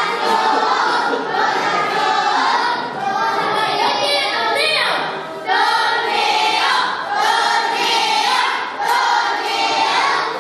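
A group of voices singing a song together, with held notes and a falling glide about five seconds in.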